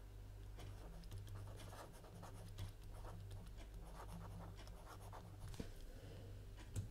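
Faint scratching of a pen writing out a short phrase by hand, stroke by stroke, over a low steady hum.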